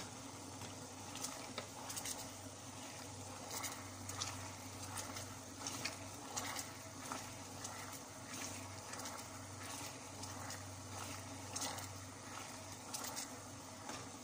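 Wooden spatula stirring sugar and water in a metal pan, with faint irregular scrapes and light taps against the pan over a low steady hum. The sugar is melting into syrup at the start of making caramel.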